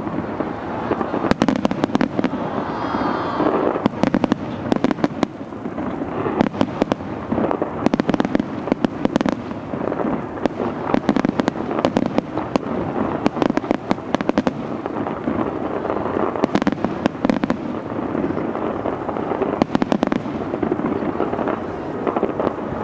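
Fireworks going off in rapid, unbroken succession: many sharp bangs and pops, several a second, over a steady din.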